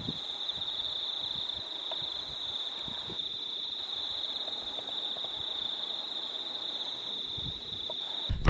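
A steady, high-pitched insect drone. A louder thump comes near the end.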